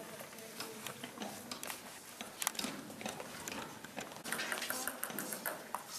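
Scattered sharp clicks of table tennis balls being hit and bouncing on tables, coming irregularly over a low hall background.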